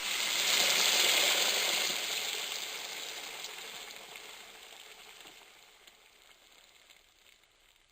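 A steady hiss, like frying or sizzling, loudest in the first two seconds and then fading out gradually.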